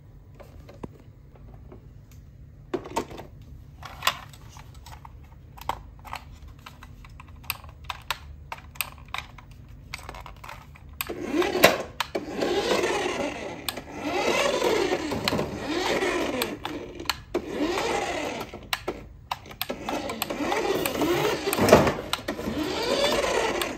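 Clicks and knocks of plastic as a toy RC bus is handled, then, about halfway through, its small electric drive motor whines in several spurts with short stops between as the bus is driven across the floor.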